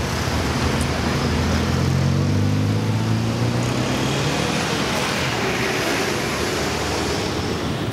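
Street traffic: a steady wash of car engine and tyre noise, with one vehicle's engine hum standing out and rising slightly in pitch between about one and four seconds in.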